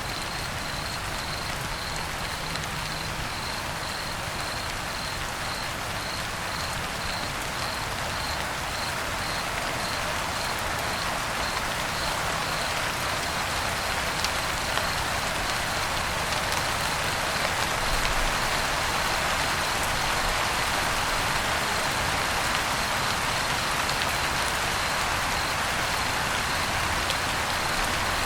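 Steady rain with a cricket chirping through it: an even run of short, high chirps, about two a second. The rain grows a little louder partway through, and the chirps fade into it in the last third.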